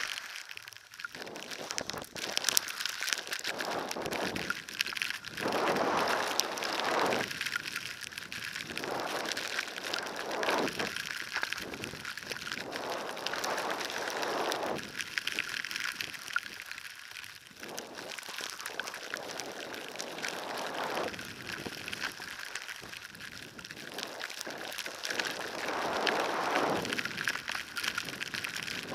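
Skis scraping and hissing across snow through a series of turns, swelling and fading every couple of seconds, over steady wind hiss on the camera's microphone in a blizzard.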